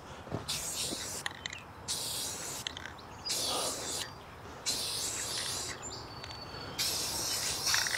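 Rust-Oleum aerosol spray paint can hissing in five short bursts of about a second each, with short pauses between them, as a coat of charcoal gray is sprayed on.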